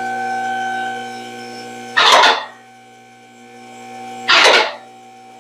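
Electric car lift motor humming steadily as the car is raised, with three short, loud bursts of hiss-like noise, each about half a second long and spaced a couple of seconds apart.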